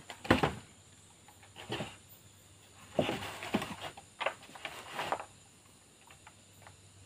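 Bamboo pole knocking and scraping against a bamboo frame as it is set in place. There are a few irregular bumps and rubs, mostly in the first five seconds, and then it goes quieter.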